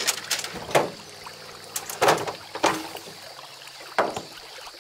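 Several sharp, irregular knocks of shoes and feet landing on a truck bed, over a low steady hum that stops a bit past halfway.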